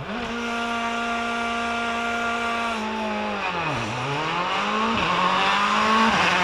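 Škoda Fabia R5 rally car's turbocharged four-cylinder engine at high revs, holding a steady note, then dropping sharply in pitch about three seconds in and climbing again through two quick gear changes near the end.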